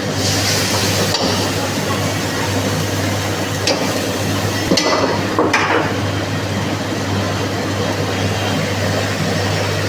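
A steady low kitchen hum runs under an even hiss. A few sharp clinks of utensils against cookware come in the middle, around four to six seconds in.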